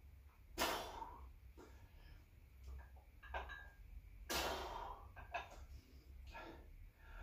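A man breathing hard through alternating dumbbell bicep curls: two loud exhales about three and a half seconds apart, with quieter breaths between them, over a steady low hum.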